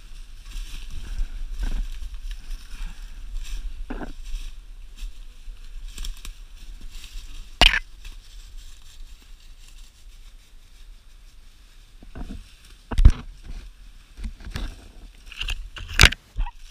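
Footsteps crunching through dry leaf litter and brush, with a low rumble on the microphone and a few sharp knocks, the loudest about 13 seconds in.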